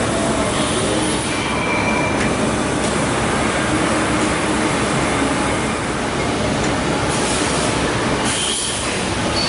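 Okuma MACTURN 30 multi-axis CNC turning centre running: a steady, loud mechanical rush with short high squealing tones now and then.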